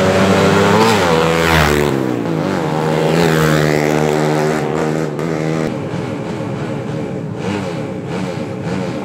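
Drag-racing motorcycle with an open racing exhaust accelerating hard. The engine note climbs in steps as it shifts up through the gears, then grows fainter and wavers in the second half.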